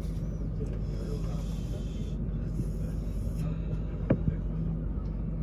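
Steady low hum inside a Fuxing EMU train's passenger car, with a high hiss that stops abruptly about three and a half seconds in and one sharp click a moment later.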